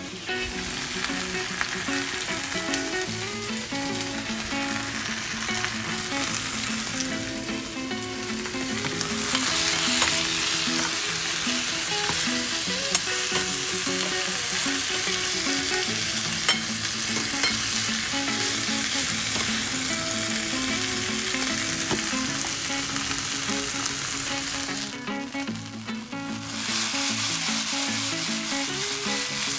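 Fried chicken pieces and sliced peppers and onion sizzling in sauce in a frying pan, stirred with a metal ladle and tossed in the pan. The sizzle swells about ten seconds in and drops away briefly near the end before returning.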